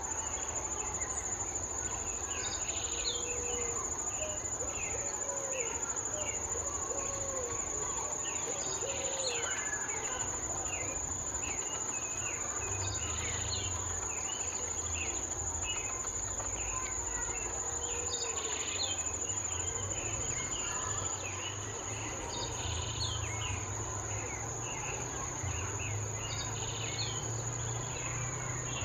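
Insects trilling steadily at one high pitch, with many short bird chirps and calls scattered over it. A low hum comes in about halfway through.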